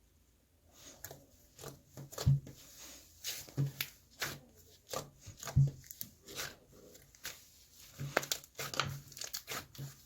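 Irregular crinkling, rustling and tapping of things being handled close to the microphone, with a couple of dull thumps about two and five and a half seconds in.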